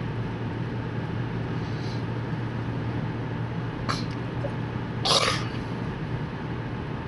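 Steady car road and engine noise heard inside the cabin while driving at speed. A sharp click about four seconds in, then a short louder burst of noise about a second later.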